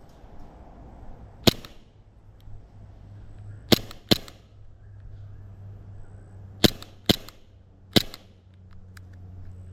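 Green-gas gel blaster pistol (Double Bell replica of the Taran Tactical Glock 19 Combat Master) firing six sharp single shots: one, a quick pair, another quick pair, then one more.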